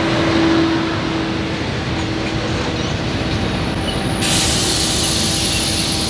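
Locomotive-hauled passenger train's carriages rolling past along the platform: a steady rumble with a steady humming tone. About four seconds in, a steady hiss starts suddenly.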